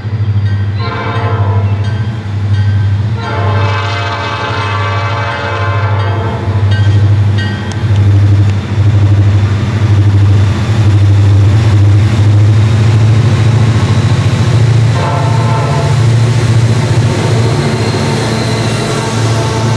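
Diesel freight locomotives working hard under throttle on an upgrade: a deep steady engine rumble that grows louder as they pass. The horn sounds a long blast about a second in, a longer one at three seconds, a short one near seven seconds and another blast around fifteen seconds, the warning for a grade crossing.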